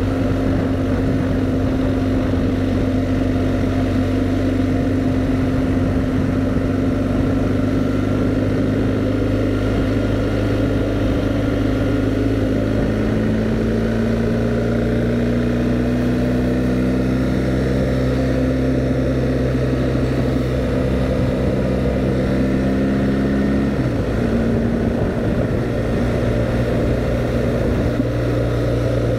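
BMW R1250GS Adventure's boxer-twin engine pulling steadily as the motorcycle gathers speed on the open road, with wind and road noise around it. The engine note climbs slowly, then shifts suddenly a few seconds before the end, as at a gear change.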